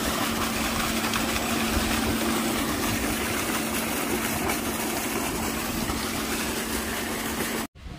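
Water gushing hard out of a solar-powered tubewell's discharge pipe, over the steady hum of the running pump. The sound cuts off suddenly near the end.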